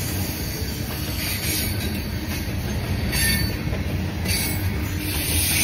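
CSX freight train's hopper cars rolling past, with a steady rumble of steel wheels on rail and some high wheel squeal.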